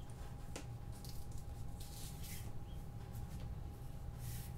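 Soft handling noise from a Rode boompole being raised and passed between hands: scattered light clicks and swishing rustles, over a steady low room hum.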